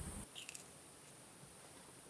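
Steady high insect buzz over a low wind rumble that cuts off abruptly a quarter second in; a few faint clicks follow, then near silence.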